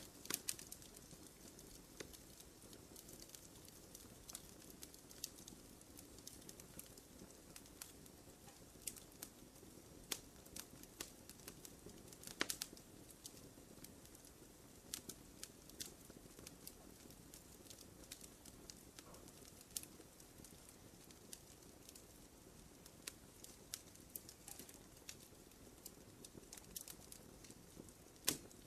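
Small campfire burning quietly, with scattered, irregular crackles and pops over a faint steady hiss; one louder pop comes near the end.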